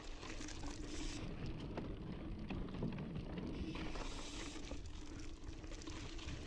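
Intense Sniper mountain bike riding over dry, loose dirt singletrack: tyre noise on the trail, small rattles and clicks from the bike, and wind on the onboard camera's microphone, all faint and steady.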